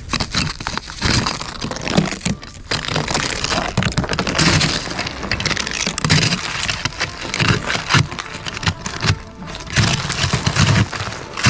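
Thick sheet ice on a truck's windows being scraped and broken off, with irregular cracking and scraping strokes and short dull thuds; the ice is coming away easily, loosened by the defroster.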